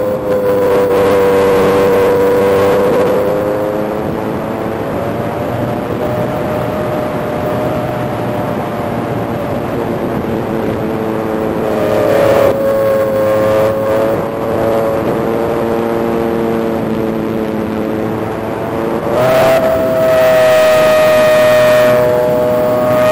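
Electric motor and five-blade propeller of an E-flite Spitfire Mk XIV 1.2m foam RC plane, heard from an onboard camera: a steady whine over wind rush, its pitch shifting with the throttle. About nineteen seconds in the whine steps up, higher and louder, as the throttle is opened.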